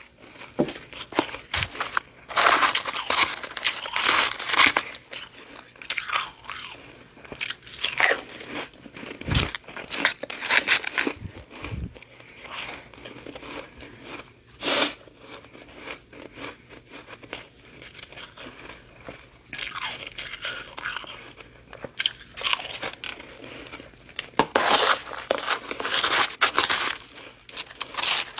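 Close-miked biting and chewing of freezer frost: loud crisp crunches of the soft icy frost in clusters of bites, with quieter chewing between them.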